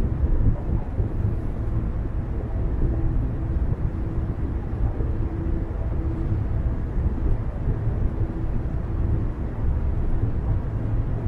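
A car driving steadily, a continuous low rumble of tyres on the road and the engine.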